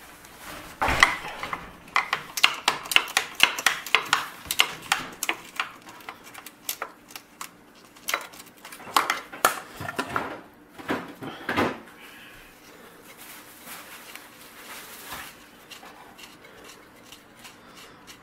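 Ratcheting wrench working a bolt on a steel golf-cart frame: quick metallic clicks and clinks, stopping about twelve seconds in.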